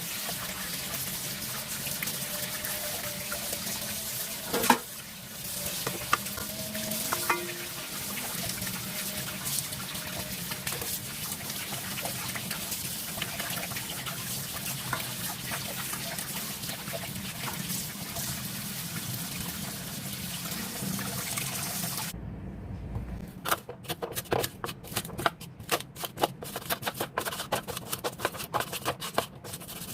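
Water running steadily from a tap into a sink, with a few knocks and clatters. About 22 seconds in it stops abruptly and gives way to quick, irregular clicking and tapping.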